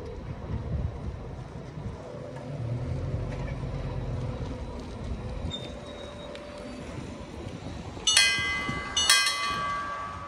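Stadler Tango tram-train rumbling as it pulls away and fades. Near the end, two loud ringing metallic strikes about a second apart, the second ringing on.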